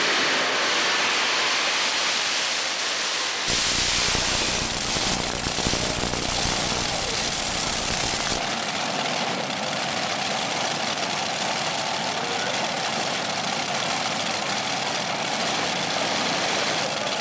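Multi-engine supercharged modified pulling tractor running hard down the track under load. After about 8 seconds the noise settles to a slightly quieter, steadier engine sound as the tractor sits at the end of its pull.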